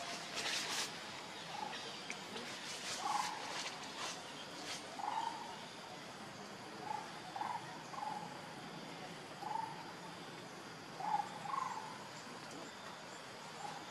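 Short animal calls, about a dozen, repeated irregularly, each a brief mid-pitched note, with a few sharp clicks in the first few seconds.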